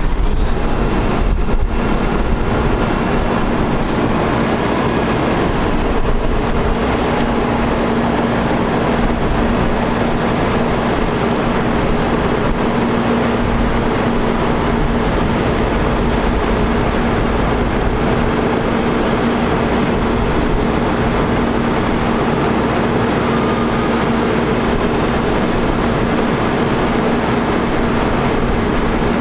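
Digger derrick truck's diesel engine running steadily to drive the hydraulics while the boom is raised, with a steady hum.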